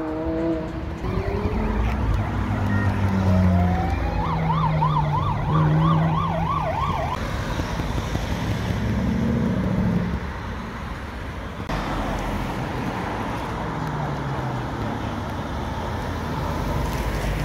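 Sports-car engines revving and accelerating in city traffic. For about three seconds near the middle, an emergency-vehicle siren warbles rapidly up and down over them.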